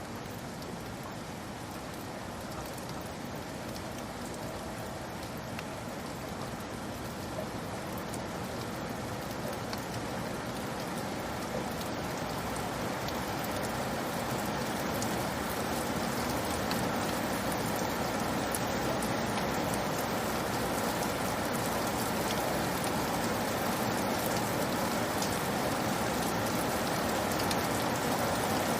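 Steady rain falling, a dense even hiss with scattered drops, slowly getting louder.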